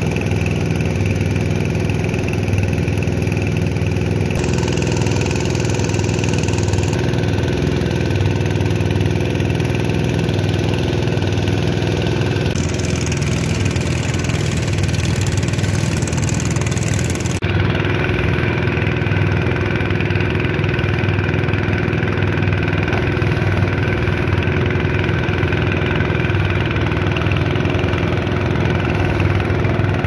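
Small fishing boat's engine running steadily under way, over a hiss of rushing water.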